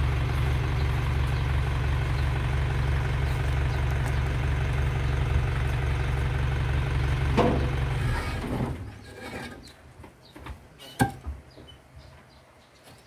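Truck engine idling steadily, then shut off about eight seconds in. After it stops, a few scattered knocks and scrapes of block handling can be heard, the loudest a sharp knock about three seconds later.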